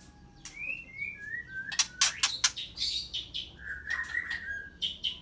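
White-rumped shama (murai batu) singing: short whistled notes sliding down in pitch, a quick run of sharp clicking notes about two seconds in, and a longer warbled phrase near the end.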